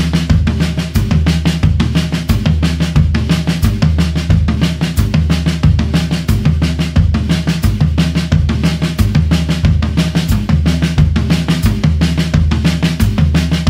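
Acoustic drum kit played: a run of quick, even snare and cymbal strokes over a steady bass drum beat about twice a second.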